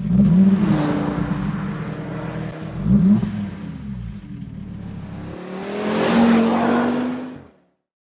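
Car engine revving in three pushes: a burst at the start, another about three seconds in, and a longer swelling rev near the end that quickly dies away.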